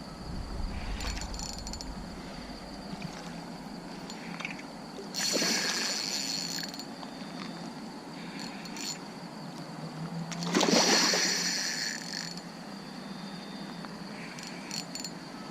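Hooked barramundi thrashing and splashing at the water's surface twice, about five seconds and ten and a half seconds in, the second splash the louder, over steady night-insect trilling.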